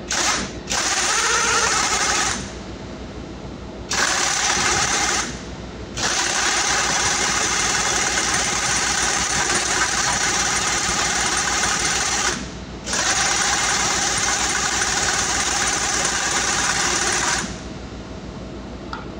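Pneumatic impact wrench driving a long extension into a diesel engine, hammering in bursts: a brief blip, then runs of about two, one and a half, six and four and a half seconds. A steady machinery hum fills the gaps between bursts.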